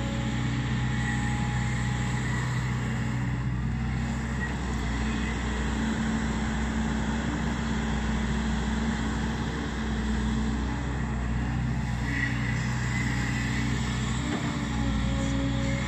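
Volvo EC210B crawler excavator's six-cylinder diesel engine running steadily at a constant speed.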